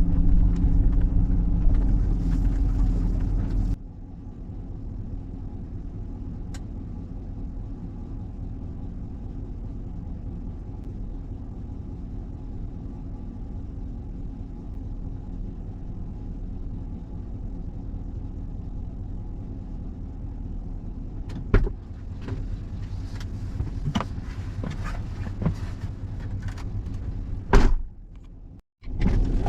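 Vehicle engine idling, heard as a steady low hum that drops abruptly to a quieter low rumble about four seconds in. Near the end come scattered clicks and knocks and one loud thump, followed by a brief moment of silence.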